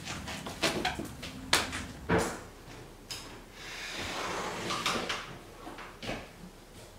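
A series of sharp knocks and clicks, thickest in the first two seconds, with a softer rushing stretch in the middle and a few more knocks later on.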